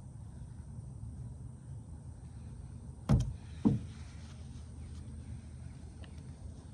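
Bluegill set down on a plastic cutting board: two thumps about half a second apart, a little over three seconds in.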